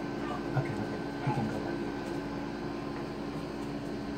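Steady mechanical hum of room equipment, with a couple of faint short sounds about half a second and a second and a half in.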